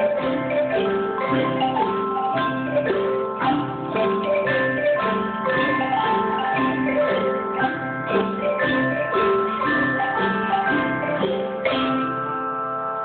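A children's ensemble playing xylophones with mallets: several overlapping parts of struck, ringing notes in a steady repeating pattern.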